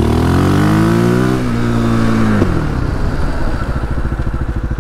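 Quad engine revving up briefly, dropping back as the rider slows, then settling into a low, even pulsing idle. No brake squeal is heard.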